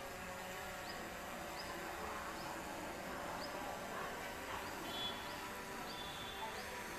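Steady outdoor background noise with a short, high, rising chirp repeating about once a second, as from a small bird or insect calling.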